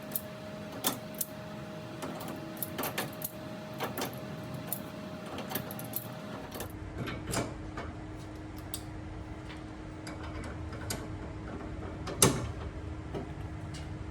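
Hand tools and metal brake parts clicking and clanking at irregular intervals, with one louder metal knock near the end, over a faint steady hum.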